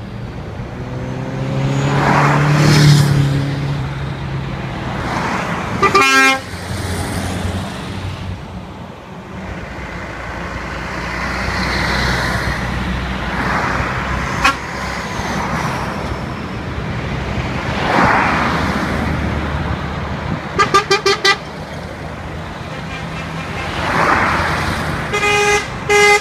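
Lorries passing one after another with engines running, each swelling and fading as it goes by. Truck horns sound: a short blast about six seconds in, a quick run of about five toots near twenty-one seconds, and a longer blast near the end.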